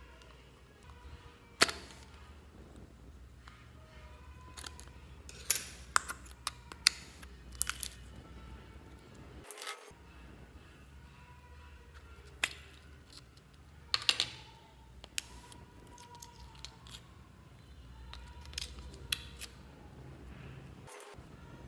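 Slime and jelly pieces being handled and pressed by hand: scattered sharp clicks and pops, loudest about a second and a half in and again around fourteen seconds in, over a faint low hum.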